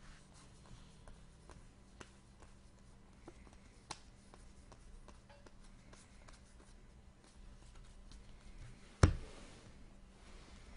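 Trading cards being handled and flipped through on a table: faint rustles and small clicks, with one sharp knock about nine seconds in.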